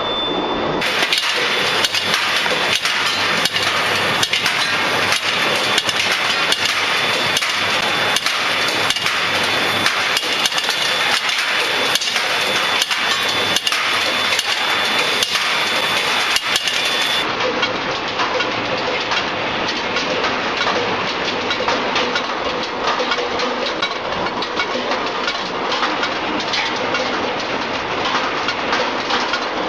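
A hot-rolling mill for D40 steel balls is running as red-hot bar stock is fed into its skew rolls. There is a steady machine clatter with regular sharp knocks about one and a half a second, and a high steady whine through the first half. After about seventeen seconds the noise turns to a denser clatter without a clear beat.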